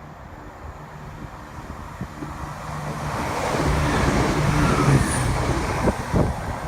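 A train approaching and running past, its engine note and rail noise building to a peak about four to five seconds in and then easing, with a faint high squeal near the loudest point.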